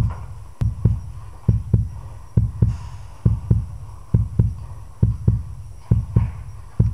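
Heartbeat sound effect: a steady lub-dub double thump, low and deep, repeating a little faster than once a second.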